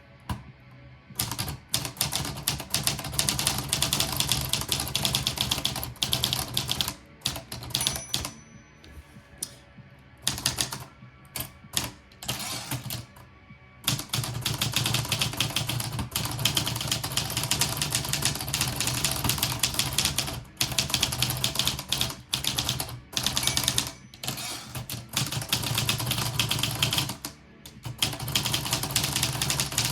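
Manual portable typewriter, a Topaz (Lettera 32 type), being typed on: rapid runs of key and typebar strikes broken by short pauses, with a brief high ring about eight seconds in.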